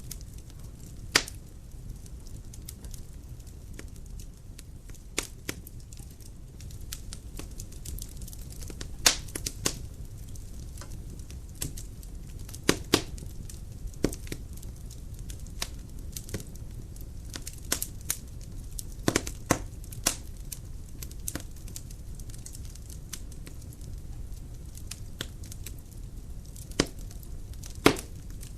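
Dry firewood burning in a fireplace: a low steady rumble of flame with irregular sharp crackles and pops, a few loud snaps standing out about a second in, around the middle and near the end.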